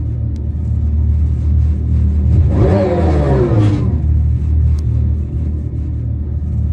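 Dodge Charger Daytona SRT electric concept's Fratzonic Chambered Exhaust, an amplifier-driven synthetic exhaust sound, holding a steady low rumble. About two and a half seconds in it swells into a brief rev that falls in pitch and settles back into the rumble after about a second and a half.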